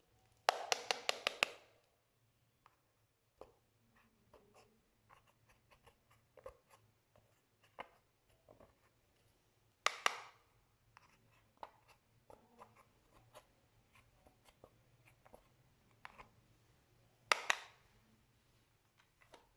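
Slime being worked by hand, giving soft scattered clicks and crackles. Three louder bursts of rapid popping come about a second in, around ten seconds, and near the end.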